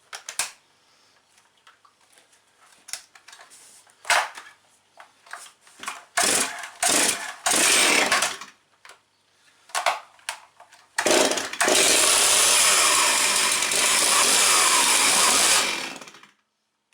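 Stihl 036 QS chainsaw's two-stroke engine being started. After a few sharp clacks, the engine runs briefly for about two seconds, stops, then starts again about halfway through and runs steadily for about five seconds before dying away near the end.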